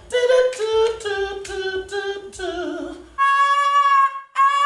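A woman singing solo at a studio microphone. She runs through short ornamented notes, then holds a long steady high note from about three seconds in, breaks off briefly, and holds another.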